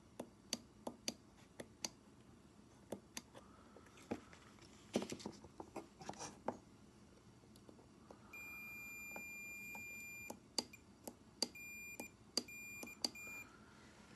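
A series of sharp plastic-like clicks, then a steady electronic beep held for about two seconds. More clicks follow, mixed with a few shorter beeps.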